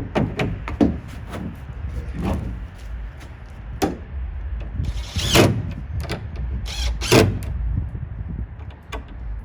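Plywood toolbox parts being handled in a pickup bed: a series of irregular wooden knocks and clatters, the loudest two about five and seven seconds in.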